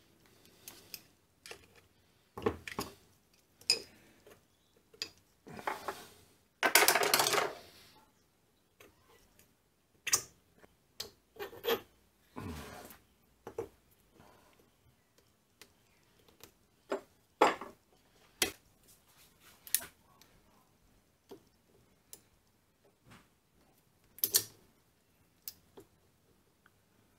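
Hand tools and small metal parts clicking, clinking and tapping against a mini lathe headstock during disassembly. About seven seconds in comes a louder scraping rub lasting a second or so, with a shorter one a few seconds later.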